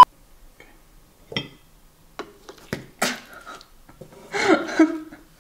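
A few light clicks and knocks from handling a Pie Face game and its plastic parts on a table, then a short vocal sound from a person about four seconds in.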